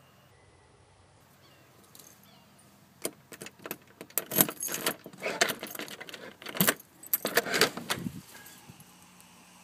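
Keys jangling on a key ring as a key is pushed into and turned in a brass doorknob lock, a run of sharp metallic clicks and jingles starting a few seconds in and stopping near the end.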